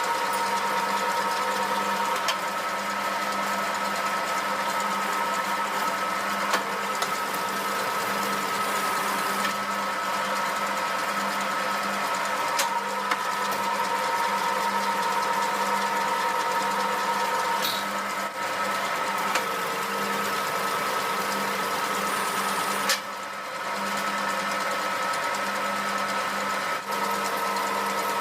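Homemade metal lathe running steadily while cutting a thread with a single-point tool: a continuous mechanical hum with a few steady tones, broken by several sharp clicks and a brief drop in level about 23 seconds in.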